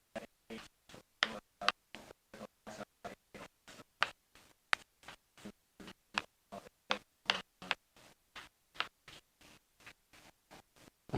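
Quiet, choppy series of short ticks and scratches, about three a second, with near silence between them.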